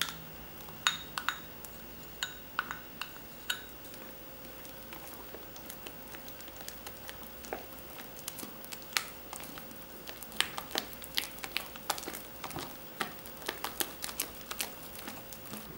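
A spatula folding whipped cream in a glass mixing bowl, knocking and scraping against the glass in irregular light clinks that come faster near the end, over a faint steady hum.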